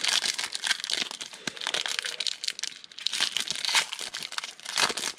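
Foil wrapper of a 2018 Donruss football trading card pack being torn open and crinkled by hand: a dense, continuous crackling and tearing.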